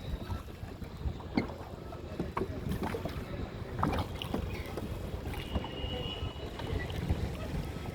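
Water splashing and knocking around a small rowboat, with wind rumbling on the microphone.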